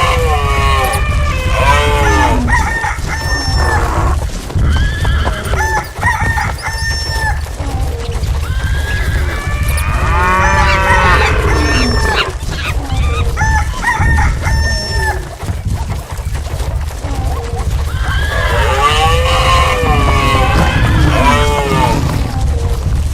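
Animal stampede sound effect: a steady low rumble of running hooves under a mix of animal calls, among them horse whinnies, swelling and thinning in waves. It stops abruptly at the end.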